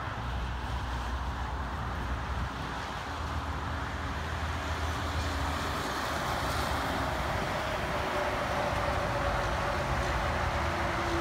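Semi truck pulling a loaded scrap trailer drives past along the highway, its engine hum and tyre noise over steady traffic and growing slowly louder, with a faint whine that drops in pitch near the end.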